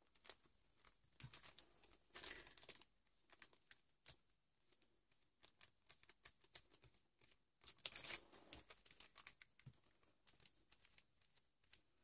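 Faint rustling and soft taps of hands rubbing and pressing on a paper collage page, with two brief swishes about two seconds in and again near eight seconds.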